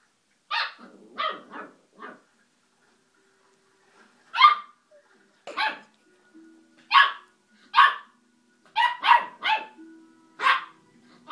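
West Highland white terrier puppy, about ten weeks old, barking in short, high-pitched yaps, about a dozen in irregular clusters with pauses between. The barking is angry, aimed at a radiator that has burned its nose.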